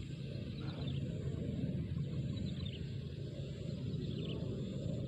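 Outdoor ambience: small birds give short, faint high chirps a few times over a steady low rumble.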